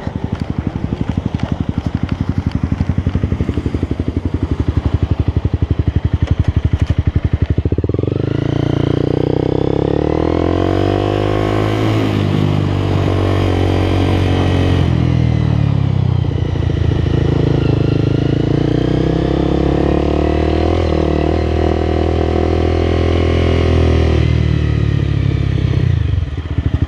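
Motorcycle engine running. It idles with a steady rapid beat for several seconds, then pulls away, its pitch rising and falling through repeated revs and gear changes. It cuts off abruptly at the very end.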